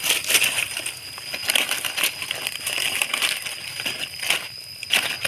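Dry leaf litter and twigs crackling and rustling in irregular snaps as a hand reaches in to pick wild mushrooms.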